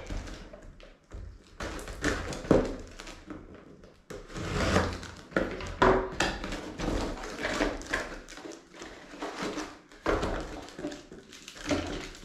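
Small cardboard box being cut open with scissors and unpacked by hand: cardboard and packaging scraping and rustling, with a few light thunks as items are set down on the table.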